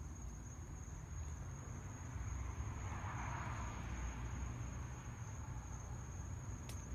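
Crickets trilling steadily in a single high, unbroken tone, over a low rumble. A soft rush of noise swells and fades in the middle.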